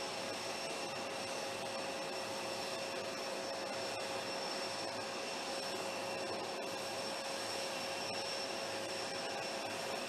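Steady jet-turbine whine from the parked Air Force One, a Boeing VC-25A (747), a constant hiss with several fixed high tones held throughout.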